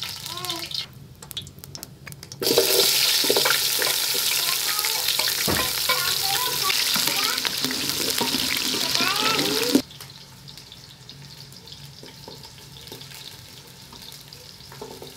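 Chopped onions sizzling loudly in hot oil in an aluminium pot while being stirred with a wooden spatula; the sizzle starts suddenly a couple of seconds in and cuts off suddenly about seven seconds later.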